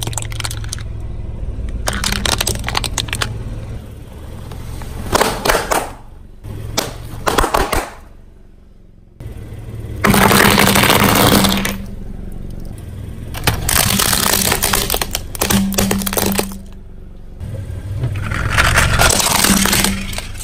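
A car tyre rolling slowly over objects on concrete, crushing them in a series of cracks and crunches, with the loudest crackling about halfway through as the tyre rolls onto a row of small glass vials and breaks them. A steady low hum runs underneath.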